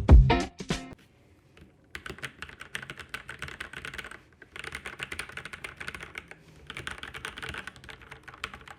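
Fast typing on a Keychron C1 mechanical keyboard with Gateron Brown tactile switches: three runs of rapid keystrokes with short pauses between them.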